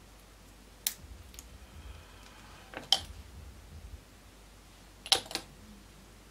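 Small sharp clicks and taps of plastic kit parts and a glue applicator being handled on a workbench, with a double tap about five seconds in.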